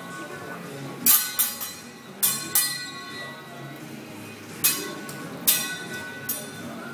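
Steel teppanyaki spatula and fork clanging together during a chef's flipping tricks: about eight sharp ringing clinks in uneven groups, two or three close together, then a pause, then three more spread apart.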